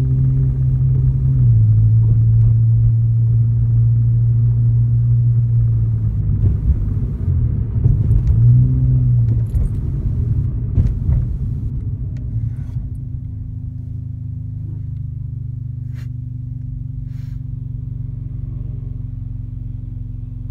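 2005 Honda Accord's 2.4-litre four-cylinder engine heard from inside the cabin as the car drives on, its pitch stepping down once and rising and falling briefly. About twelve seconds in it drops to a quieter, steady idle as the car stops at a red light.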